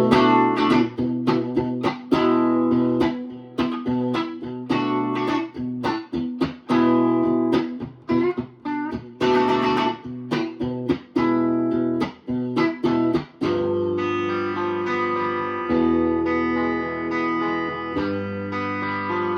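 Electric guitar, a Fender Stratocaster played on its bridge single-coil pickup through a Princeton Reverb amp. It plays short picked chords and notes, then from about 13 seconds in, longer ringing chords. It is a good sound, but way weaker in output.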